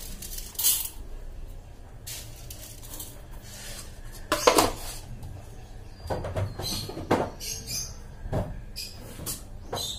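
Plastic lidded storage containers being handled and set down, with scattered knocks and clicks, the loudest about four and a half seconds in.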